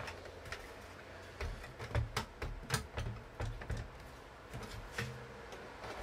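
Scattered clicks and a few dull knocks from handling: cables being pulled among the bench clutter and a Pioneer CDJ-1000MK2 being shifted on the workbench.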